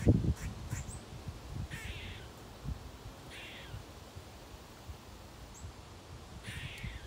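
Eastern gray squirrel giving three short, raspy alarm calls, spaced a second or more apart: the squirrel's alarm at a cat. Low thumps in the first half-second are the loudest sound.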